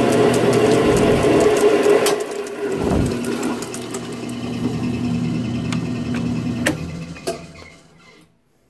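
Drill press motor running a 1-inch annular cutter through 3/8-inch mild steel plate: a steady hum with scratchy cutting noise and dense chip ticks that thin out about two seconds in, and a dull thump about three seconds in. A few clicks follow, then the press winds down and stops near the end.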